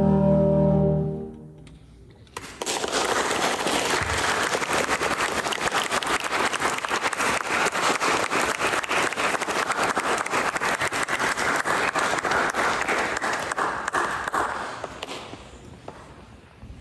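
A school concert band's final held chord, brass to the fore, cuts off about a second in. After a short gap the audience applauds steadily for about twelve seconds, and the applause then fades away.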